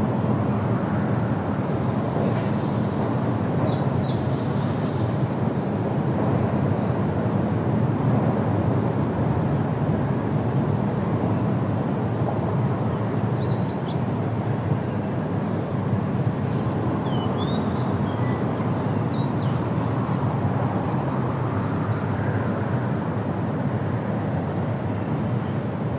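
Steady low outdoor rumble of an unseen engine, wind or water, with a few faint, brief high chirps from small birds scattered through it.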